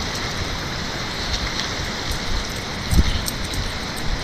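Steady rush of a flooded river running high and fast at a dam, with a low thump about three seconds in.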